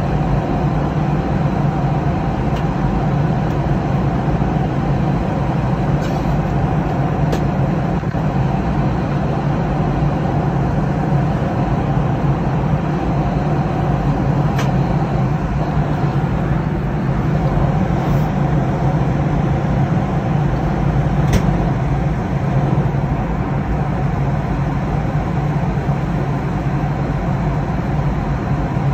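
Steady cabin noise of a jet airliner in cruise flight: an even drone of engines and airflow, strongest in the low range, with a few faint clicks.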